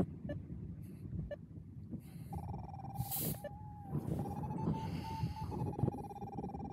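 Wind buffeting the microphone throughout. About two seconds in, a paragliding variometer's tone starts and holds, steady and slightly wavering in pitch.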